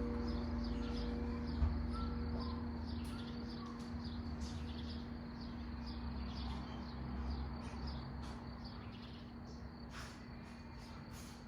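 Church bells' lingering hum dying away, a steady low tone fading slowly, with small birds chirping.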